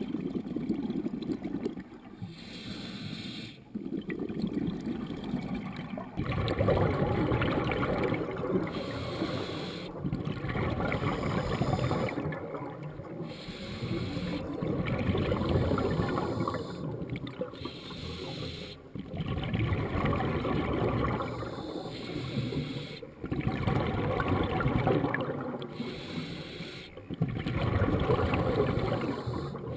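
Scuba regulator breathing heard through an underwater camera housing: bursts of exhaled bubbles gurgling for a few seconds each, about every four seconds, with quieter inhalations between.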